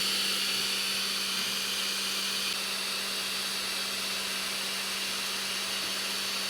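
3D printer running with a steady fan whir: an even low hum under a thin high whine, unchanging throughout.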